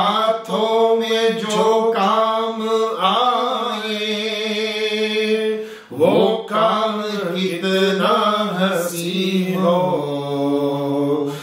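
A voice singing an Urdu devotional song in praise of the sheikh, in two long, drawn-out and ornamented phrases with a short break about six seconds in.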